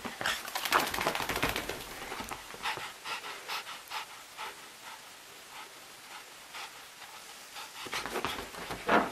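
Wet Yorkshire terrier puppy panting in quick, even breaths, strongest in the first couple of seconds and sparser after. A louder burst of noise comes near the end as it moves across the sofa.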